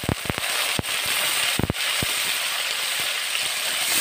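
Sliced onions sizzling in hot oil with cumin seeds: a steady hiss broken by scattered sharp crackles and pops.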